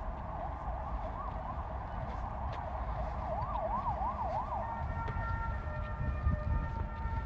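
Electronic siren wailing up and down, the sweeps quickening about three seconds in, then switching to steady held tones a little after halfway, with a low rumble underneath.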